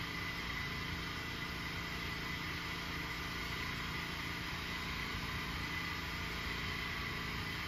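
Champion 8750-watt portable generator's engine running with a steady drone and a low hum, under light load before the air conditioner's compressor starts.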